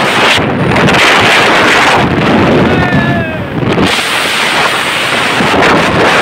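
Heavy wind rushing over the microphone of a motorcycle riding at speed, with the bike's road noise under it. About three seconds in, a short wavering high tone rises over the rush.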